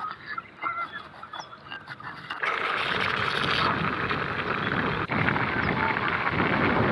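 Short repeated honking calls of farm fowl for about two seconds. Then a sudden, louder, steady rushing noise takes over.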